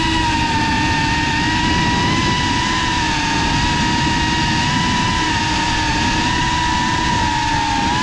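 FPV quadcopter's electric motors and propellers whining at a steady high pitch that wavers only slightly, over a low rumble.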